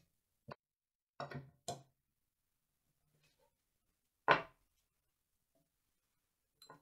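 Metal saw-frame parts clicking and knocking against each other and the wooden bench as they are handled and fitted together, a few light clicks in the first two seconds and one much louder knock a little after four seconds in.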